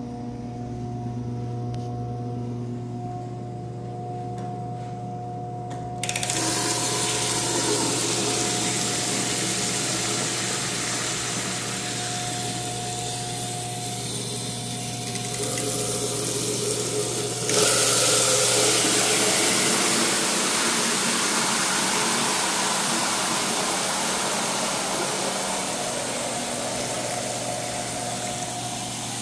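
Water running from a two-handle chrome faucet into a porcelain sink bowl and drain. It starts suddenly a few seconds in and jumps louder partway through as the flow is turned up. A steady electrical hum runs underneath throughout.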